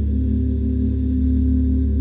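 Singing bowls and gong ringing together in a steady drone of several overlapping low tones.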